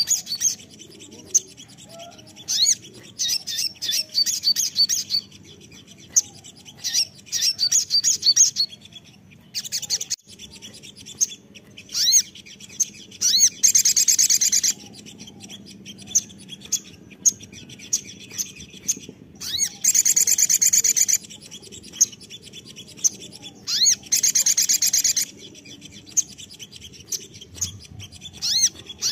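Male olive-backed sunbird singing: a string of sharp, high chirps and short trills, with three longer, denser trills of about a second each in the second half.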